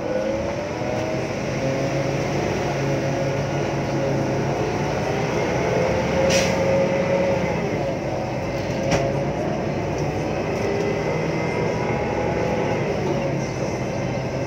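Daewoo BH115H city bus under way: the diesel engine runs with the whine of its Voith automatic gearbox, the pitch slowly rising and falling as the bus speeds up and slows. Two sharp clicks come about six and nine seconds in.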